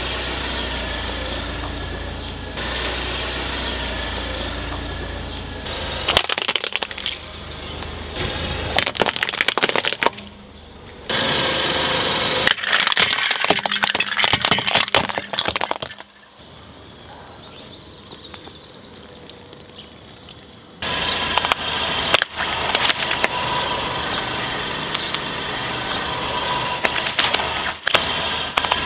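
A car's tyre rolling slowly over objects on asphalt, with the engine running, and several bursts of sharp cracking and crunching as the objects are crushed, one of them a plastic toy cake. There is a quieter stretch in the middle.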